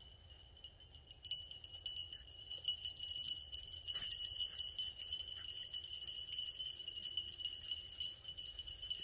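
Insects trilling steadily at one high pitch, with faint light ticking and jingling from about a second in.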